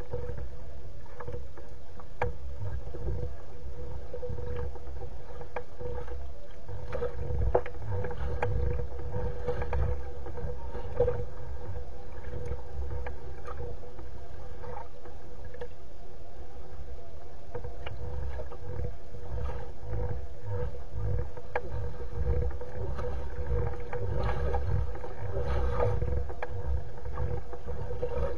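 Wind rumbling and buffeting on an outdoor nest-camera microphone, with water lapping against the reed nest and scattered small clicks and splashes. A faint steady hum runs underneath.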